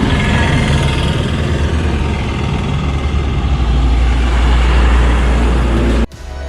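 Motor vehicle engine running steadily with traffic noise, cut off abruptly about six seconds in.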